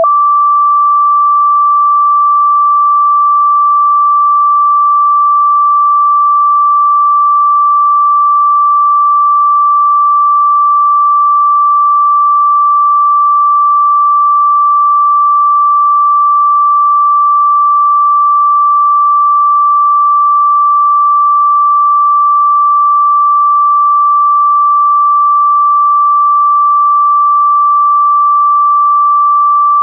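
A single pure electronic sine tone, a little above 1 kHz, held steady at one pitch with no other sound. It is a chakra meditation frequency tone.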